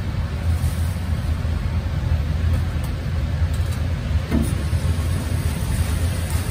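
Tap water running steadily into a stainless steel bowl of red shiso leaves in a sink, as the leaves are washed by hand.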